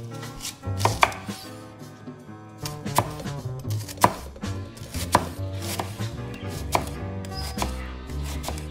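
Knife chopping food on a cutting board in single sharp strokes, about one a second, over soft background music.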